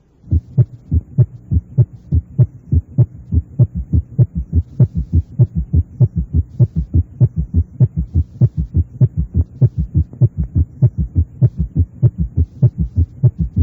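Heart sounds heard with a stethoscope at the cardiac apex in a fast gallop rhythm, a steady run of short low thumps about three or four a second over a faint low hum. The extra sound is a summation gallop: atrial contraction falling on rapid ventricular filling at a fast heart rate, here in left ventricular failure.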